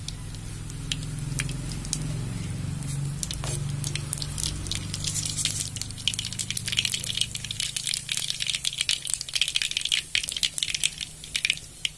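Mustard seeds crackling and popping in hot oil as they temper, the popping growing denser and louder from about halfway in.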